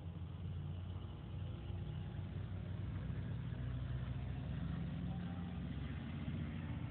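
Box truck's engine running as the truck pulls through and drives past. It grows louder about two seconds in and stays loud.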